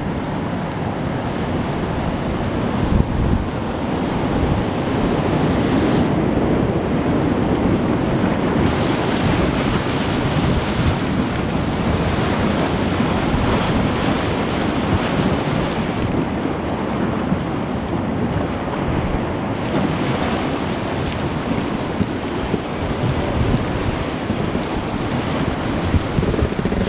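Whitewater river rapids rushing steadily, heard from a raft riding through them, with wind buffeting the microphone.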